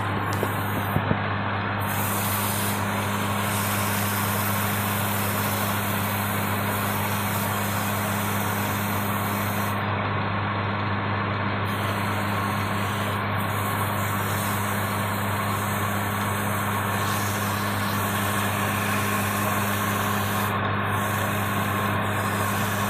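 Electric motor of a belt-driven wood lathe running with a steady hum, while the spinning wooden spindle is sanded by hand, giving a steady rubbing hiss. A couple of short clicks about a second in.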